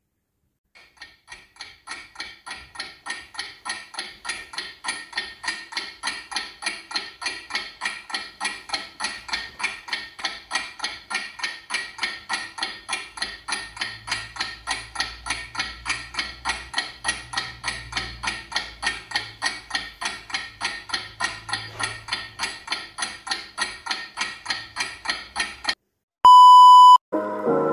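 A long, even run of short beeping ticks, about three a second, fading in at the start and stopping abruptly near the end. Then a loud, steady, high television test-pattern tone, the tone that goes with colour bars, lasts under a second.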